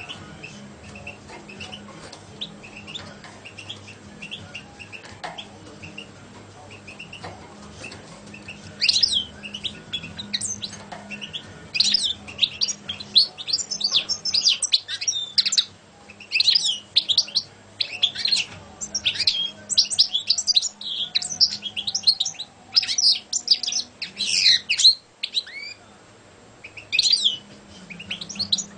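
European goldfinch (saka) singing in a cage: soft, spaced calls for the first eight seconds or so, then loud phrases of fast, high notes, broken by short pauses near the middle and again near the end.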